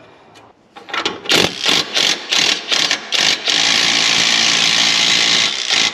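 Power tool running a nut onto a front suspension bolt: a string of short trigger bursts, then a steady run of about two and a half seconds that stops abruptly. The nut is only being snugged, not fully tightened, until the suspension load is back on it.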